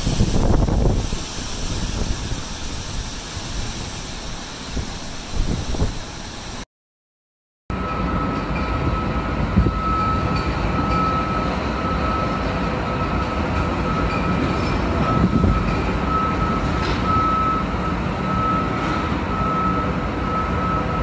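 Storm wind gusting hard against the microphone. After a short break, steady wind and rain noise with a single steady high tone running through it that swells and fades a little.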